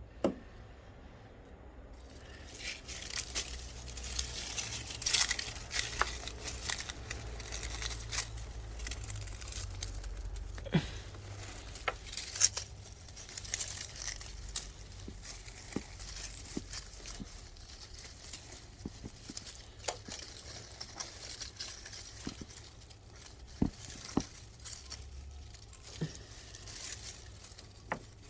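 Close crinkling, rustling and tearing handling noise with scattered small clicks and a few sharper taps.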